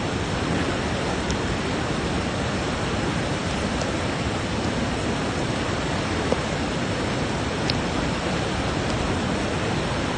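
Torrential rain and fast-flowing floodwater making a steady, even rushing noise.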